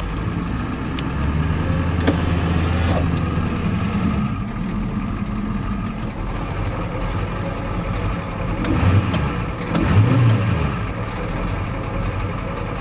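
1993 Ford F-250's non-turbo 7.3-litre IDI V8 diesel running rough, heard from inside the cab as the truck creeps along. The engine note rises and holds for a few seconds near the start, then revs up and drops back twice near the end.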